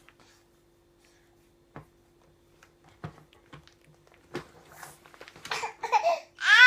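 A few light knocks on a plastic high-chair tray over a faint steady hum, then breathy laughter that breaks into loud laughing near the end.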